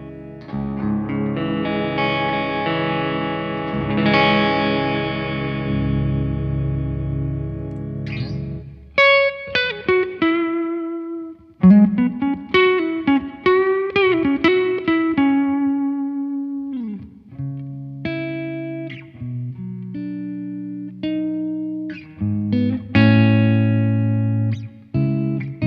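Electric guitar played through a Blackstar JJN20 MkII amp: held chords ringing for about eight seconds, then a picked single-note lead line with string bends and a slide down, then chords again.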